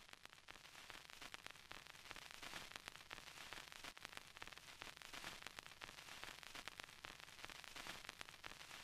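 Faint, steady crackle and hiss full of tiny pops: an old-film crackle effect under the silent-film title cards.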